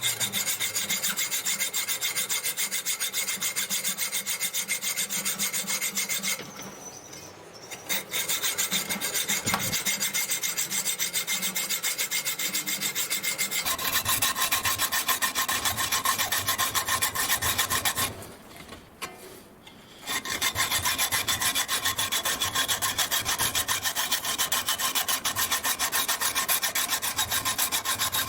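Hand hacksaw cutting through an aluminium block held in a vise, a steady run of rasping back-and-forth strokes. It stops briefly twice, around 7 seconds in and around 19 seconds in.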